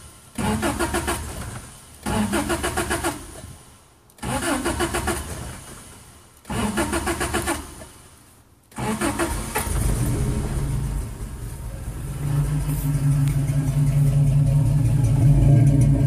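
Toyota 22R-E four-cylinder engine being cranked in short bursts that die away, four times. On about the fifth try, some nine seconds in, it catches and keeps running, getting louder from about twelve seconds. The engine has a misfire.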